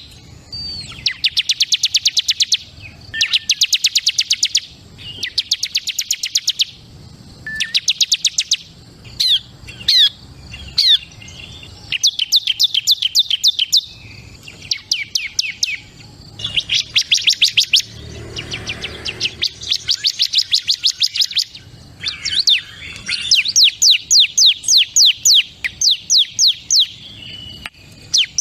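Ciblek kristal (bar-winged prinia) singing: loud, rapid trills of sharp, high notes, about a dozen a second, in phrases of one to two seconds repeated after short pauses, with a few quick gliding notes between them.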